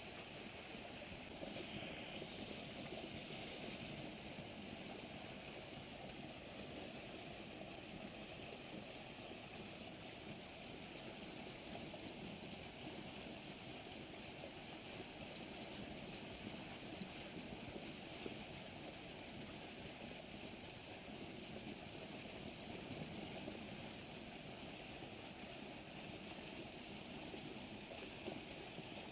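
Fast-flowing canal water rushing steadily over the concrete channel, with faint, short high-pitched ticks now and then.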